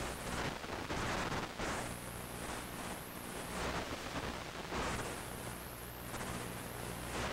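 Hiss and static from an analog 5.8 GHz FPV video link's audio channel, swelling and fading twice over a steady low hum.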